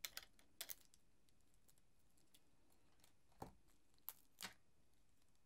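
Near silence broken by a few faint clicks and rustles from plastic multimeter test leads and probes being handled: a cluster just after the start and another three to four and a half seconds in.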